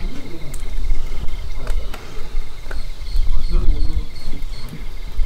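Crickets and other insects chirping in a steady, evenly pulsing chorus, over a low rumble.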